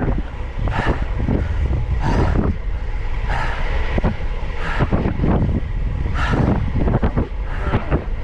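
Wind buffeting a GoPro Hero 11's microphone on a fast bicycle descent: a loud, steady low rumble with irregular gusts surging about once a second.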